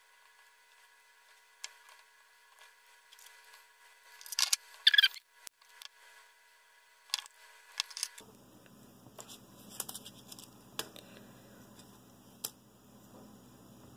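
Scattered light clicks and rustles of hands handling thin motor wires and a carbon-fibre drone frame on a rubber work mat, with a louder rustle about four to five seconds in. A faint low hum joins from about eight seconds in.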